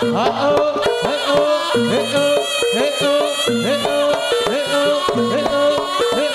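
Amplified traditional Javanese jaranan music: an ensemble plays a continuous, rhythmic melody, with repeated rising, bending strokes in the lower notes.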